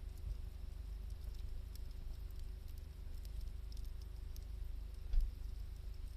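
Wood fire crackling: scattered small pops and snaps over a low rumble, with a dull thump about five seconds in.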